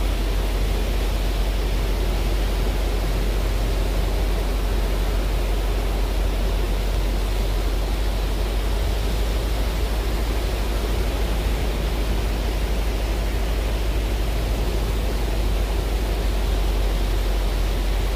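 Steady rush of breaking surf with heavy wind rumble on the microphone.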